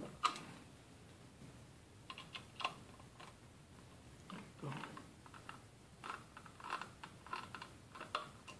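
Faint clicking and light scraping of a screwdriver turning a small screw out of the plastic case of a network switch, the ticks coming in short clusters as the hand turns the driver.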